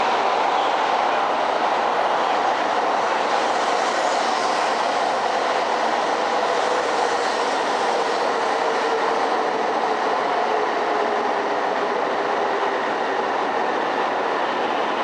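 E2 series Shinkansen train moving alongside the platform: a steady running noise of wheels and motors, with a faint tone that slowly falls in pitch.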